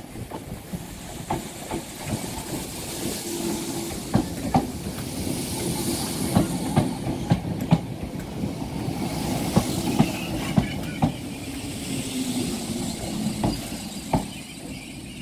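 Merseyrail Class 508 electric multiple unit 508130 running along the platform, its wheels clicking sharply and irregularly over rail joints, with a faint low hum and a hiss that swells and fades twice.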